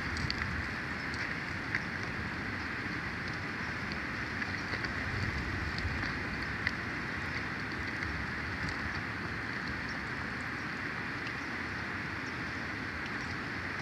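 Steady outdoor wind noise, a rough rumble on the microphone with a hiss over it, and scattered faint ticks.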